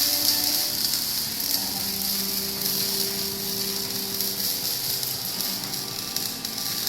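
CO2 (MIG) welding arc burning steadily, a continuous hissing crackle.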